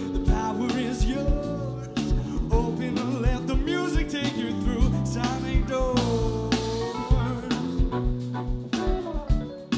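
Live band playing: electric guitar, bass, keyboards and a drum kit keeping a steady beat, with a male lead vocal singing over them and holding one long note about six seconds in.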